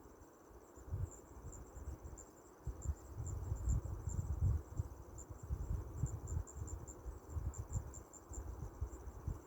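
Insects trilling steadily at a high pitch with a rapid pulsing, over an irregular low rumble.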